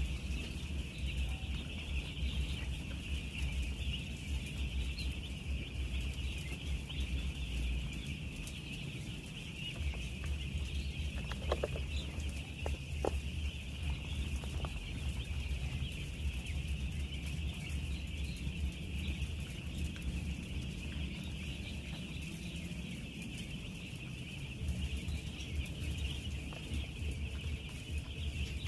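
A dense, steady chorus of thousands of week-old broiler chicks peeping together, with a low rumble underneath.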